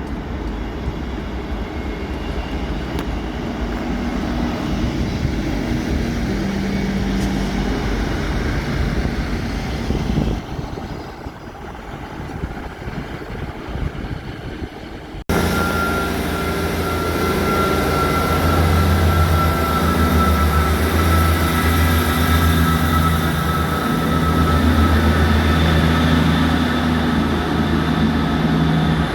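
Railway trains running, in two passages with a sudden cut about 15 seconds in. First comes a steady rushing noise with faint low tones. Then a louder, steady low hum with a thin high whine over it, as from a train's engine or traction equipment running close by.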